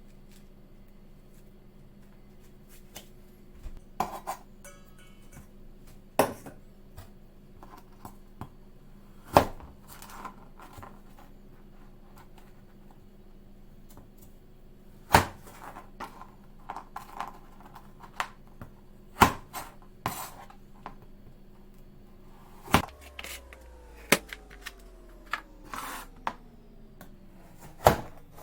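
Kitchen utensils and dishes knocking and clinking now and then over a steady electric hum. About 23 seconds in, the hum is switched off and its pitch falls away as the motor winds down.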